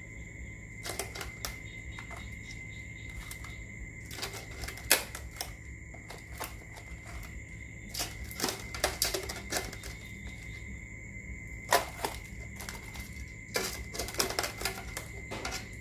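Tableware being handled: irregular sharp clicks and clinks of utensils against dishes, coming in small clusters, over a steady high-pitched tone.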